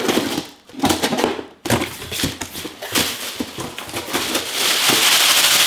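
A cardboard package being opened by hand: a run of scraping, crackling and tearing noises from cardboard and packing, then a steady hiss through the second half, like tape or packing being pulled in one long rip.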